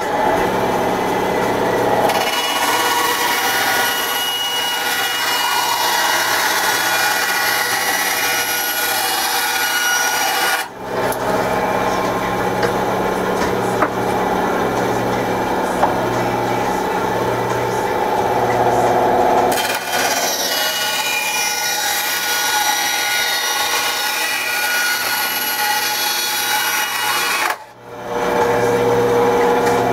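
Ryobi bandsaw running and cutting a Kydex sheet for a holster: a steady motor hum under the hiss and rasp of the blade through the plastic. The sound breaks off abruptly for a moment twice.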